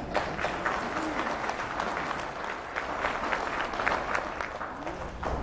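Audience applauding: many hands clapping at once.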